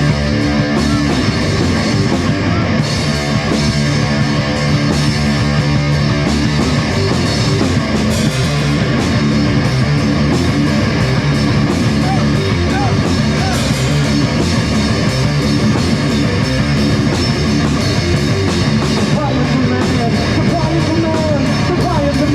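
Rock music played by a band on electric guitar and drum kit, loud and continuous.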